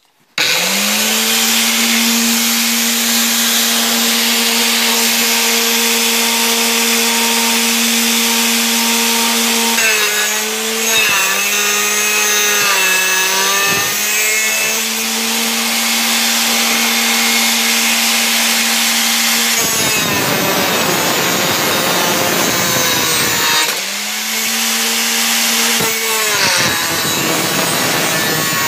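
Angle grinder mounted in a homemade stand starts up about half a second in and runs with a steady whine. A steel bar is pressed against its disc several times. Each time the motor's pitch drops under load and a harsh rasp of grinding metal takes over, longest about two-thirds of the way through.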